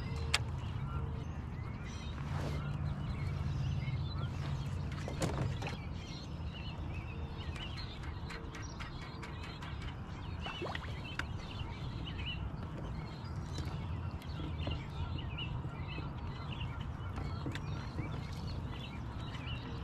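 Birds chirping and calling in many short notes over a steady low rumble, with a few faint clicks.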